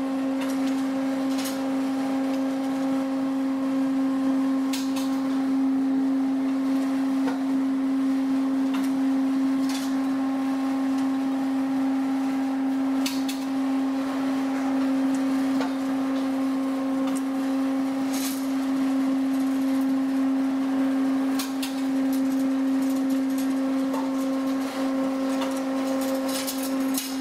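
Noodle-making machine with rollers and cutter running, giving a steady hum at one pitch, with a few sharp clicks and knocks scattered through.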